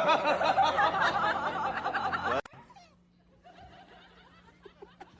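A person laughing, a high wavering snicker, cut off suddenly about two and a half seconds in; after it, only faint scattered sounds over a low steady hum.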